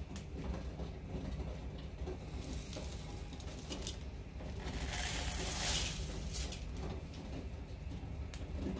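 Rolled oats poured from a cup into a bowl: a hissing, rushing patter that builds about five seconds in, peaks and dies away within about two seconds. A few small clicks come before it, over a steady low hum.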